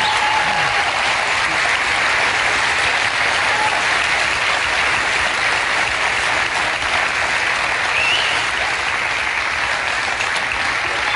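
Large studio audience applauding steadily, a dense, even wash of clapping hands.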